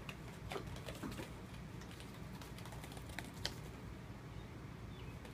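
Light, scattered clicks and taps of kittens' paws and claws on a woven-mesh pet cot and foam floor mats, with one sharper tap a little past the middle, over a steady low hum.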